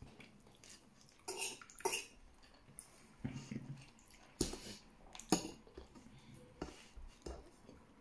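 Eating with the fingers from a plate: fingers scooping and pressing rice against the plate, giving scattered sharp clicks and taps, about six in all, the loudest a little past the middle.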